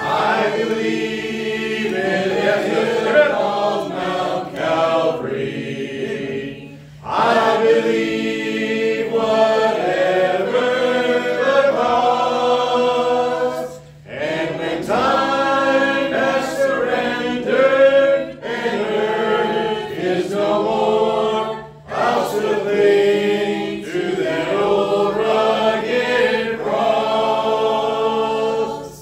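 A group of voices singing a hymn in long phrases of about seven seconds, each followed by a short break.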